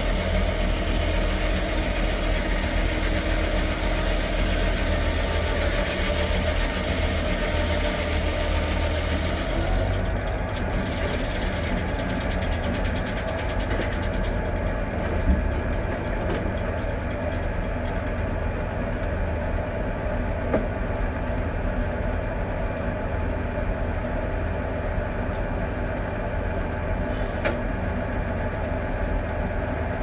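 Foley Belsaw circular sawmill with a 52-inch blade, driven by a Ford 4000 three-cylinder diesel tractor running steadily, with the blade hissing through a pine cant. About ten seconds in the cut ends and the high hiss drops away, leaving the spinning blade and the tractor engine, with a few sharp knocks later on.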